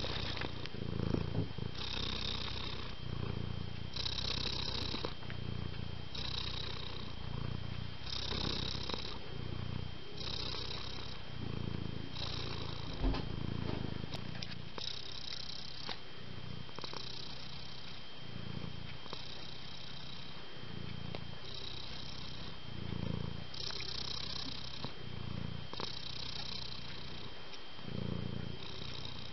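Domestic cat purring close up, the purr swelling and easing with each breath, about one breath every two seconds. A single soft thump about halfway through.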